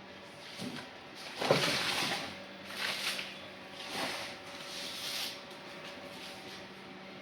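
Computer parts being handled during installation: a few short scrapes and knocks, the loudest about one and a half seconds in, over a steady low electrical hum.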